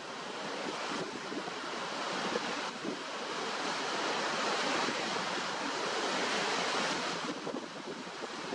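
Waterfall: a steady hiss of rushing, splashing water that swells a little through the middle and eases slightly near the end.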